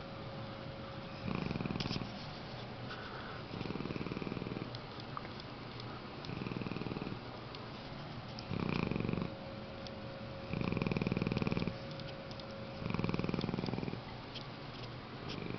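English mastiff snoring in its sleep: seven rattling snores in a steady rhythm, each about a second long, roughly every two seconds.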